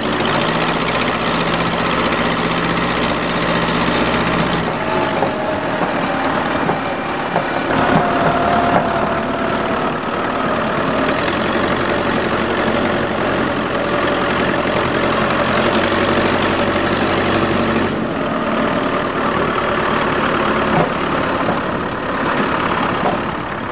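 Farm tractor engine running steadily, its note changing a few times as engine speed or load shifts.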